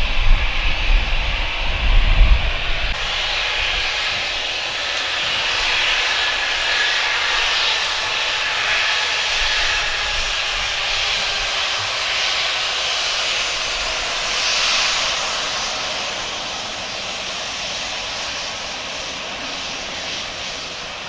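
Airbus A320's CFM56 turbofan engines at taxi power, a steady rushing jet whine that swells a little and then eases off near the end as the airliner taxis past. A few low buffeting rumbles come in the first couple of seconds.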